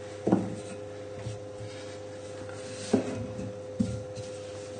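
Wooden rolling pin rolling puff pastry out thin on a floured worktop: a soft rubbing with three short knocks of the pin.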